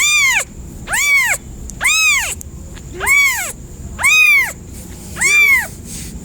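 A kitten meowing repeatedly, calling for its mother: six high, arching meows, each rising and then falling in pitch, about one a second.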